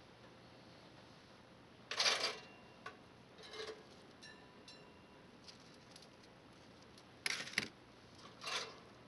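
Two slices of toast pulled one at a time out of the slots of a chrome Sunbeam Radiant Control toaster, each a short, sharp scrape, followed by a softer sound as the slice is set down on cardboard.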